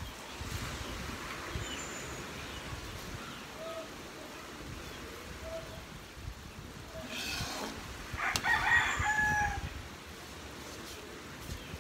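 A rooster crowing once, about eight seconds in, the loudest sound. Underneath it, a pan of sweet syrupy mixture bubbles steadily at the boil, and a ladle goes in to stir it near the end.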